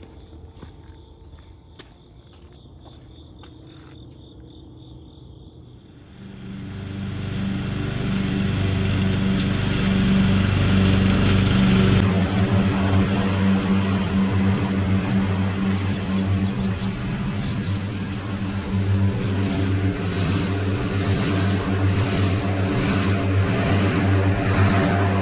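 Crickets chirping, then about six seconds in an engine comes in and runs loudly and steadily to the end.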